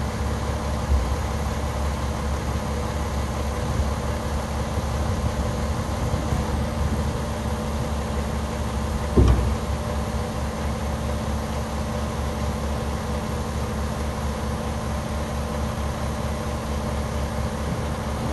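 International WorkStar 7600 dump truck's MaxxForce 11 diesel idling steadily, with one sharp thump about nine seconds in.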